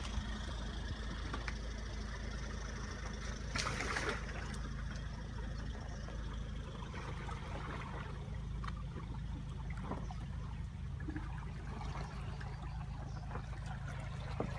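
Mercedes-Benz GLE 400 SUV wading through a ford: its engine hums steadily while water splashes and trickles around it, with a louder splash about three and a half seconds in.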